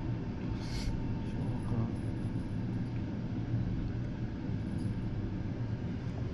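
Meitetsu 200 series electric train running, heard from inside the front car: a steady low rumble with a few light clicks, one louder burst about a second in.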